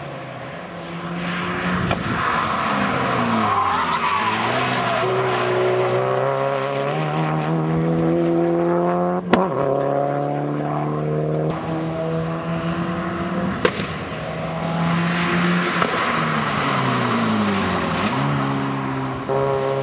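Subaru Impreza race cars' flat-four engines running at speed past the track edge. The engine note drops in pitch as a car goes by, twice, and holds steady in between. Two sharp cracks come about nine and fourteen seconds in.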